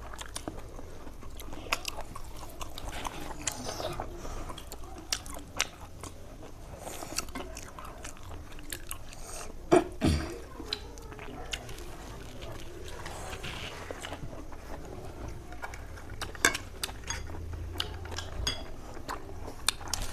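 A person eating close to the microphone: bites, chewing and crunching, heard as many short irregular clicks. A single louder knock comes about ten seconds in.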